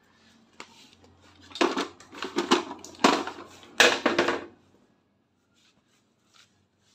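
Cordless power tools and chargers clattering as they are shifted about in a pile: a run of hard plastic and metal knocks and rattles from about one and a half to four and a half seconds in.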